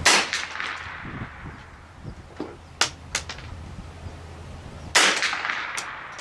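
Two .22 LR rifle shots from a Glenfield Model 60 semi-automatic, about five seconds apart, each trailing off in a short echo. Two faint sharp clicks fall between them.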